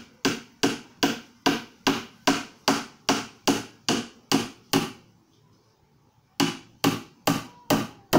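Hammer driving 2-inch nails into 3/4-inch plywood: steady, evenly spaced blows about two and a half a second, a pause of about a second and a half past the middle, then the blows resume.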